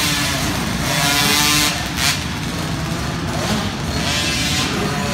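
KTM 50 two-stroke minibike engines revving through the race, the pitch rising and falling with the throttle, loudest a second or so in as a bike passes close.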